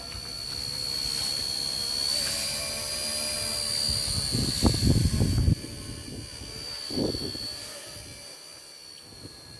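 Small electric motor of a homemade mini remote-control helicopter running, a steady high whine, with a few low thumps and rustles around the middle.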